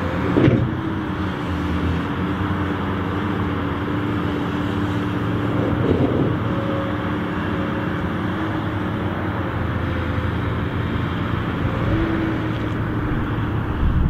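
Komatsu crawler excavator running steadily with a held tone as its engcon tilting bucket digs into soil, with brief clunks about half a second in and again around six seconds in.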